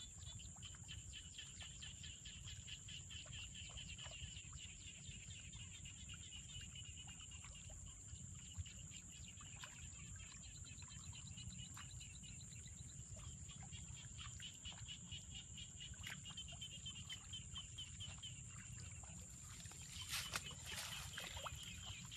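Faint rice-field ambience: a steady high insect whine with rapid chirping trills over low wind rumble. A few louder clicks come near the end.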